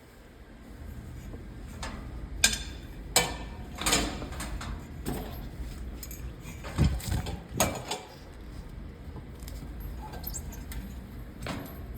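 Handling noises as a vacuum cleaner is shifted about: scattered knocks, clicks and light rattles, several in the first eight seconds, over a low steady hum.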